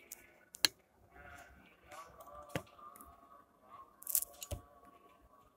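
A few sharp clicks and taps from a handheld camera being handled, the loudest about half a second in, others near the middle and end, over faint wavering pitched calls in the background.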